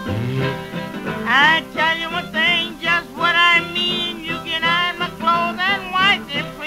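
Background music: an old country-blues recording with plucked guitar under a lead line that slides up and down in pitch.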